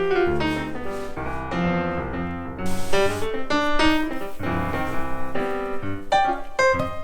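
Background music led by piano, quick shifting notes over a low bass line, with a brief cymbal-like wash about three seconds in.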